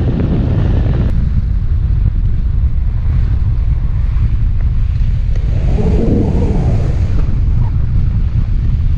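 Wind buffeting the microphone: a loud, steady low rumble that eases about a second in and swells again in a gust around six seconds in.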